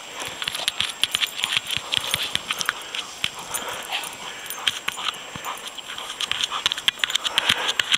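A German shepherd digging and burrowing with its nose in deep powder snow after a ball: rapid crunching and scuffing of snow, busiest near the end, with the dog's breathing.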